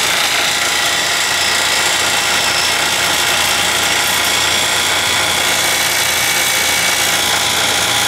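NAVAC NRD24M vacuum pump running steadily just after start-up, a constant mechanical hum with a few steady whining tones, pulling a vacuum on a York air-cooled screw chiller.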